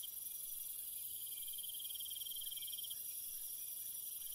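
Faint insect chorus, cricket-like: a rapid high trill that breaks off about three seconds in, over a steady, higher-pitched insect hiss.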